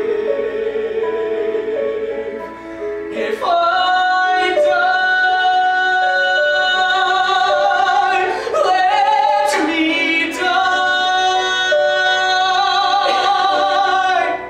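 A male singer sings a slow ballad in a high voice with wide vibrato, to harp accompaniment. About three and a half seconds in he swells into loud, long held notes that stop near the end.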